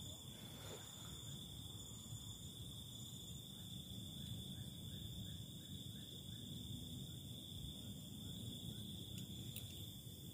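Night insects chirring steadily in a high, even drone, with a run of short, quick falling chirps from about a third of the way in until near the end, over a low background rumble.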